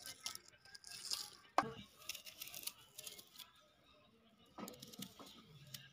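Small knives peeling and cutting small red onions: short bursts of dry papery skin crackling and tearing, with a few sharp clicks, the loudest about a second and a half in.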